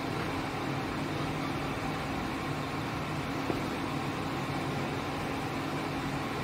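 Steady fan-like mechanical hum, with the soft stirring of a wooden spatula through cooked rice in a pressure cooker pot and one light tap about three and a half seconds in.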